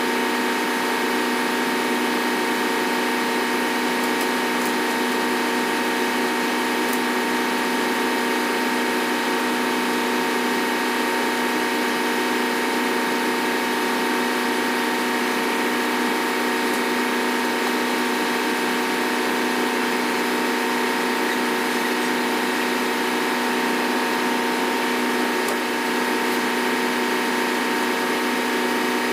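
Steady, loud drone of running ship engine-room machinery, made of several held tones that do not change, with a few faint clicks now and then.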